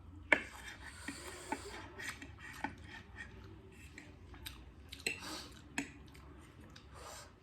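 Eating sounds from spicy instant noodles: utensils clicking against the plate, with chewing, slurping and hissy breaths. The sharpest click comes about a third of a second in.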